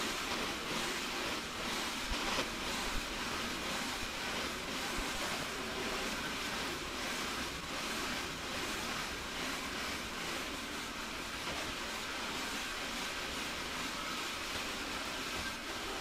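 Xiaomi Mi robot vacuum at work on a laminate floor, heard as a steady, even rushing noise with no distinct tones, its sound sped up 25 times in a timelapse.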